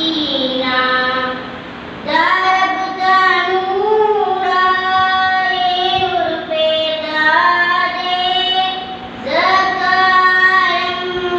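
A young boy singing a naat (Urdu devotional poem) without accompaniment into a microphone. He sings in long, held, wavering phrases, with short breaks between phrases about two seconds in and again near nine seconds.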